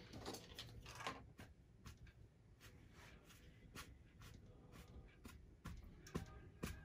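Faint scratchy strokes and light taps of a flat bristle brush working paint over a canvas. The strokes come close together in the first second or so, then turn scattered.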